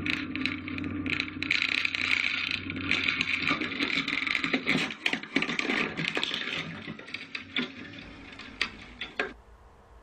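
Small plane's cockpit noise, engine hum and rushing wind, giving way through the middle to a string of sharp knocks and scraping clatter as the aircraft crashes, dying down and cutting off sharply near the end.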